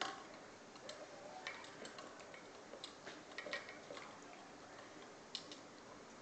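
Small dog licking out a stainless steel food bowl: irregular light clicks and clinks of tongue and teeth on the metal.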